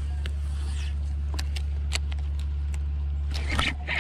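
A 30-pound-thrust electric trolling motor running with a steady low hum. A few sharp clicks sound over it.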